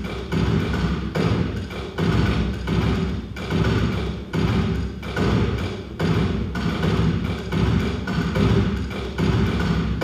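Live electronic music of layered percussive beats built from processed elevator field recordings and live input, convolved with a granulated elevator recording: low thuds about once a second with quicker tapping, clicking hits between them in an interlocking rhythm.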